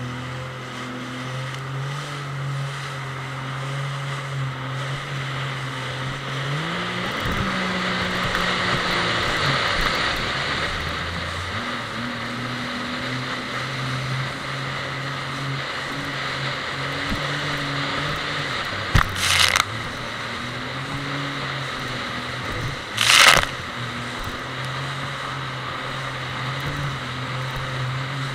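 Personal watercraft (jet ski) engine running at speed over choppy sea, with the hiss of rushing water and spray. Its pitch shifts about a quarter of the way in, then holds. Two short, loud splashes come about two-thirds of the way through.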